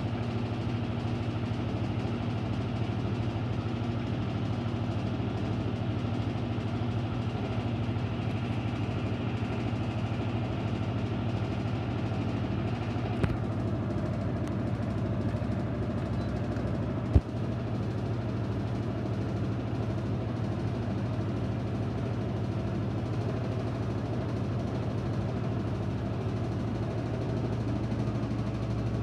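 Electrolux Ecologic 12 kg washing machine running with a steady motor hum. There is a sharp click about 13 seconds in, after which the higher hiss drops away, and a louder click about 17 seconds in.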